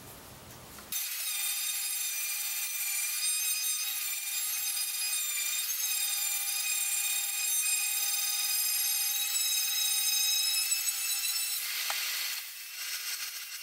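Oscillating detail sander with a 220-grit triangular pad running and sanding the cured epoxy and fiberglass of a surfboard repair: a steady high-pitched whine with many overtones. It starts about a second in and cuts out about two seconds before the end, leaving a fainter hiss.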